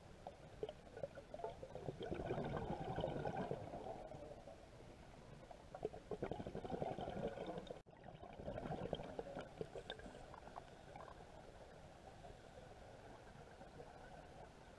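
Scuba diver's exhaled breath bubbling out of the regulator underwater, in repeated gurgling bursts a few seconds apart, then a quieter steady wash of water noise in the last few seconds.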